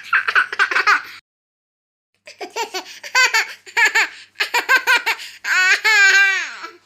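High-pitched laughter in quick chopped bursts. A short bout of about a second comes first, then a pause, then a longer run of laughs ending in one long falling laugh.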